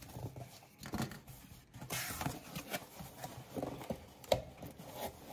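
A cardboard shipping box being opened by hand: its flaps scrape, rustle and flex as they are folded back, with a few light knocks.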